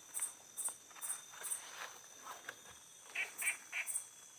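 Night forest ambience of insects calling: a steady high drone with short high chirps repeating about twice a second, and a few short lower calls a little over three seconds in.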